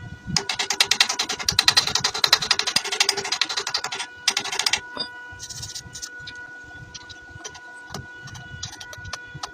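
Welding arc crackling in a fast, even rattle for about three and a half seconds, then in a few short bursts, over a steady hum of tones.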